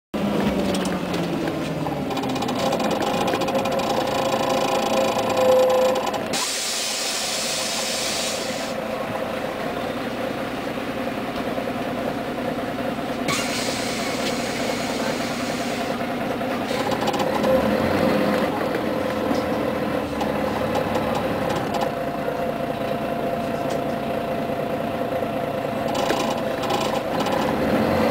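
Interior sound of a Scania CN113CLL city bus under way: its six-cylinder diesel engine running, its pitch sweeping at the start and shifting with road speed later. Two spells of hissing, about six and thirteen seconds in.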